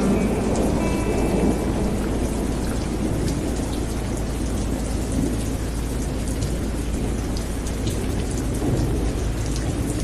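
Steady rain falling on wet pavement, with many small raindrop taps over a continuous low rumble of thunder.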